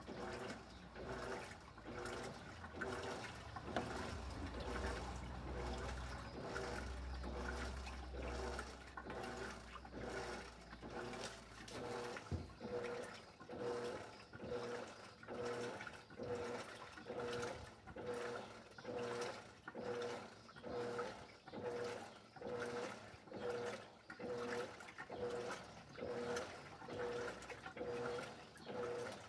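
Electrolux LED14 top-loading washing machine agitating with water in the drum: a low hum for about the first twelve seconds, then a regular back-and-forth pulsing of roughly one and a half beats a second, each stroke with a short humming tone and a slosh of water.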